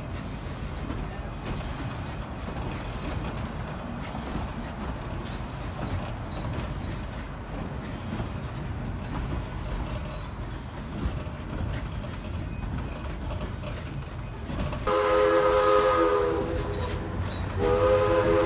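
Steady low rumble of a narrow-gauge passenger train rolling along behind steam locomotive No. 476. About fifteen seconds in, the locomotive's steam whistle sounds a chord of several tones: a blast of under two seconds, then after a short pause a second blast that goes on.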